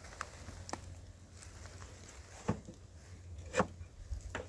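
A few separate light clicks and knocks from an old car door's handle and latch being worked, the door locked and not opening.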